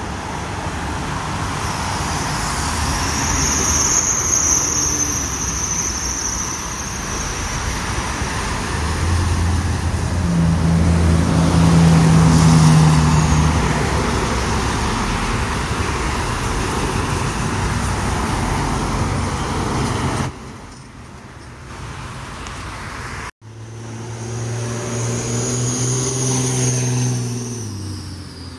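Road traffic passing at speed: cars, SUVs and pickup trucks go by one after another, their tyre and engine noise swelling and fading with each pass. A heavier engine hum rises around the middle. After a sudden break about two-thirds in, another vehicle passes with its engine note dropping in pitch as it goes away.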